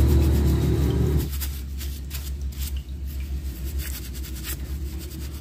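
Steel-wool scourer scrubbing caked dirt off a Honda CD 70's aluminium engine head and casing in quick, irregular scraping strokes. A low steady hum underneath stops about a second in.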